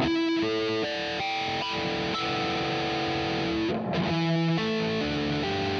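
Chibson Les Paul replica electric guitar, fitted with a plastic nut, played through distortion: a run of ringing harmonic notes, each held for half a second or more, stepping from pitch to pitch. A brief scratchy smear comes about two-thirds of the way through.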